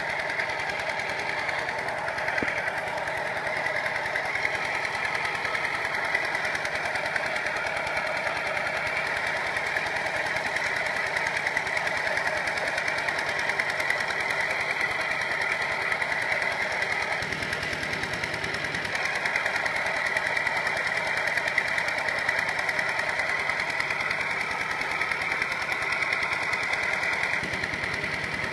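Kubota RT120 single-cylinder diesel engine on a two-wheel walking tractor running steadily under load as its cage wheels pull through deep paddy mud: a fast, even chugging.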